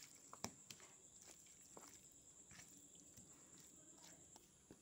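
Near silence with faint, scattered soft squelches and clicks of bare hands rubbing onion, ginger and garlic paste into raw chicken legs.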